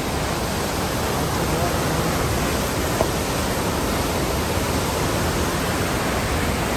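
Steady rushing of churning whitewater pouring out below a dam into the river.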